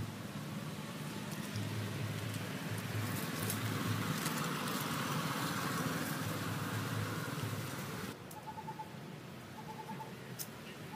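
Outdoor ambience: a steady rushing noise that drops away abruptly about eight seconds in. After that, a bird repeats a short run of quick, same-pitched notes every second or so.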